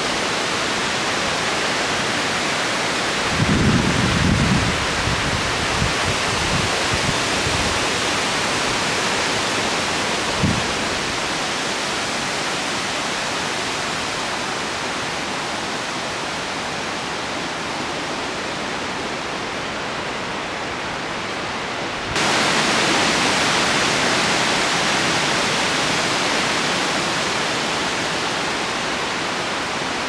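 A steady outdoor rush of noise, with low gusts of wind buffeting the microphone about four seconds in and a single soft knock around ten seconds. About two thirds of the way through it changes abruptly to a brighter, slightly louder rush.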